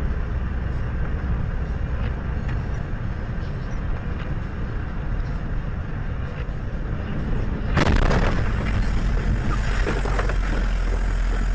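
Steady low rumble and road noise of a vehicle driving on a snowy highway, heard from inside the cab. About two-thirds of the way through, a louder rushing noise sets in suddenly and stays.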